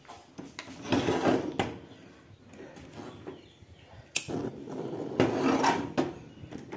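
Frying pan scraping and rattling on a gas stove's metal grate in two bursts, about a second in and again near the end, with a few sharp clicks of metal on metal between them.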